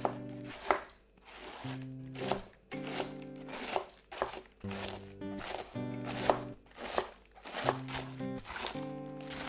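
Background music with short sharp knife strikes on a cutting board, a few every second or two, as vegetables are cut.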